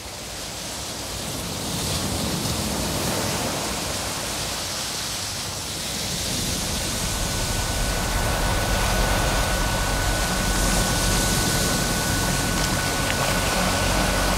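Steady wash of ocean surf, fading in at the start. A faint, thin steady tone comes in about halfway through.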